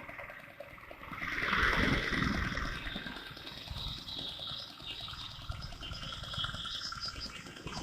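Motorcycle riding noise picked up by an SJCAM SJ10X action camera's microphone: the engine and rushing air come through muffled. The level swells about two seconds in and then keeps rising and falling unevenly, as the camera's automatic noise reduction pumps.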